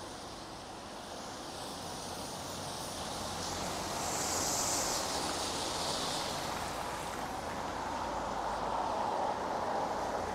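Steady rain on a town street. About four seconds in, a vehicle's tyres hiss past on the wet road, rising and fading. Another vehicle's sound builds near the end.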